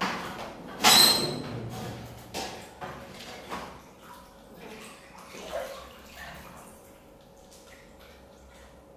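Water sloshing and splashing in a filled bathtub as a person lies back into it. The loudest splash comes about a second in, followed by smaller splashes and lapping that fade away over the next few seconds.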